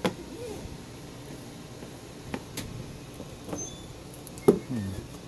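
Headphones being pressed into their packaging box: a few scattered clicks and knocks with short squeaks, the loudest knock about four and a half seconds in.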